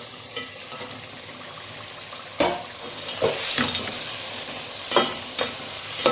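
Spoon stirring a thick turnip, spinach and meat curry in a pot as it sizzles on the flame, with several sharp knocks and scrapes of the spoon against the pot.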